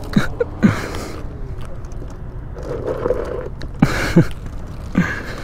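An Onyx RCR electric moped ridden hard over a dirt path: tyres crunching and scrubbing on loose dirt, wind rushing over the microphone, and a faint motor hum. A few short gasping exclamations from the rider come near the start and again about four and five seconds in.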